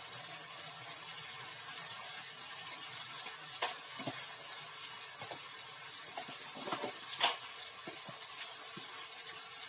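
Tomato-onion masala sizzling steadily in mustard oil in a kadai as ground spices go onto it, with a few light clicks, the sharpest about seven seconds in.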